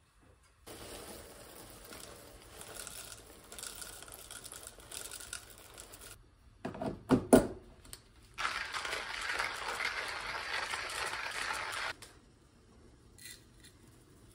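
Hand-cranked coffee grinder grinding beans: a dense, gritty crunching for about four seconds that stops suddenly. It comes just after a few sharp knocks, and before it there is a softer, steady stretch of noise.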